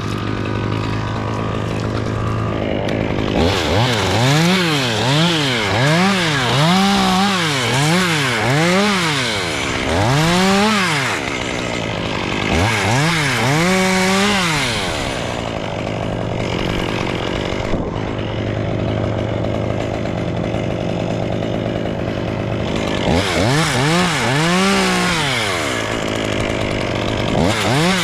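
Two-stroke chainsaw idling and revved up and down in quick bursts, about one a second, in several runs with idling between.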